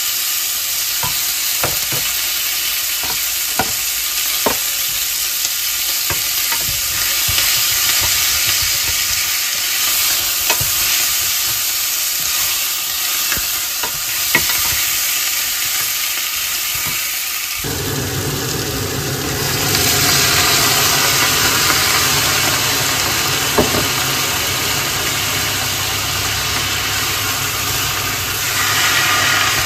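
Onion and garlic frying with seared pork ribs in a pot, sizzling steadily while a utensil stirs and clicks against the pot. About two-thirds of the way through, a louder steady rushing noise with a low hum starts abruptly and keeps going.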